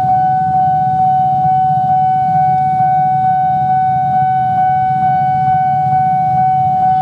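Railway level-crossing warning alarm sounding one steady, unbroken high tone, with a low rumble beneath it.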